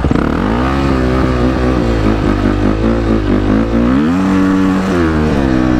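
Beta 500 RS single-cylinder four-stroke dirt bike with an FMF PowerCore 4 exhaust accelerating hard, its pitch climbing and wavering, then dropping briefly twice, about four and five seconds in, and climbing again.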